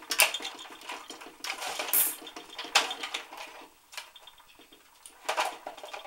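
Hand-cranked Cuddlebug die-cutting machine rolling a magnetic platform and cutting-plate sandwich through its rollers, with a fast, even clicking rattle from the crank and gears that stops about three and a half seconds in. Sharp plastic clacks come as the plates are knocked and pulled out.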